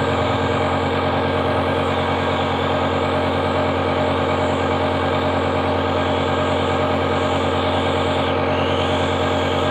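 Compressor nebulizer's air pump running with a constant, steady buzz.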